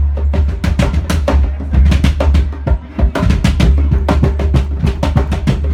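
Live band music driven by rapid drum and percussion hits over a heavy, steady low end, with a brief drop about three seconds in.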